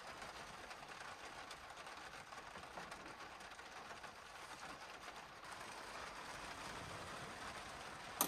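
Quiet, steady rushing noise inside the van. Near the end comes one short, sharp clink as a metal lantern handle is hung on a wire hook.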